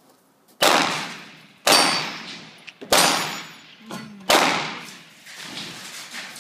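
Four handgun shots fired about a second apart, each followed by a long echoing tail off the range's concrete walls. A thin high ring follows the second and third shots.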